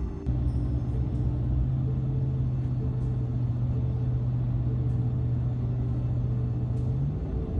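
Car cabin noise while driving at highway speed: a steady low engine-and-road drone over tyre rumble, rising slightly in pitch near the end.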